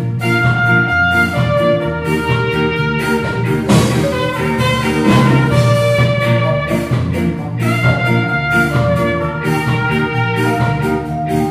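Ska-reggae band music: a brass melody, with trumpet to the fore, played in held notes over a steady rhythm section.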